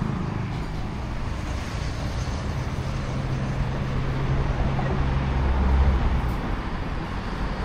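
Street traffic noise: a steady din with a motor vehicle's low engine hum, which deepens and grows louder about two-thirds of the way in.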